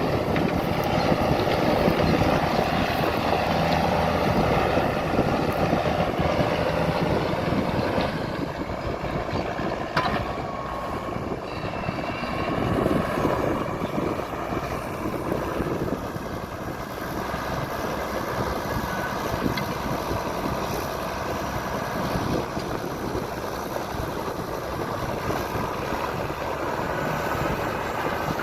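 Diesel farm tractor engine running steadily under working load in the field, a little louder for the first several seconds and then easing slightly.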